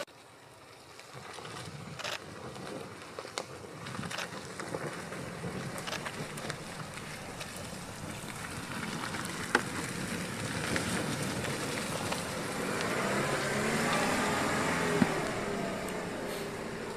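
Land Rover Defender driving slowly off-road over a dirt track: engine running, tyres on dirt, with a few sharp clicks and cracks along the way. Near the end the engine note rises and falls as the vehicle pulls across soft, muddy ground.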